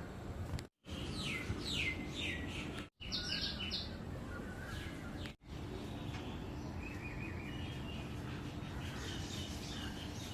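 Small songbirds calling, with series of short falling chirps and, later, quick repeated trilled notes, over a steady low rumble of wind. The sound cuts out completely three times for a moment.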